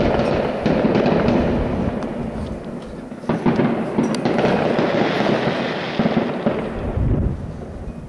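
Fireworks going off in a dense, continuous barrage of bangs and crackle, with sharper bangs about three and four seconds in, easing off near the end.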